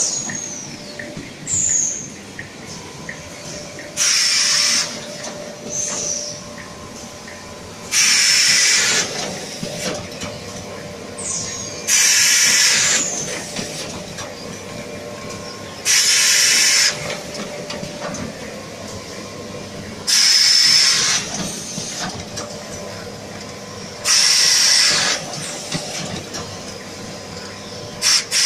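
Automatic facial tissue film bundling machine running through its packing cycle. A loud hiss lasting about a second comes every four seconds or so, over a steady mechanical hum with a few brief high squeaks.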